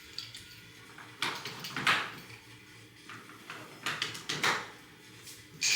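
Short scraping swishes and knocks from the metal frame and fabric of a Helinox folding camp cot as its legs are fitted. The loudest come nearly two seconds in and near the end.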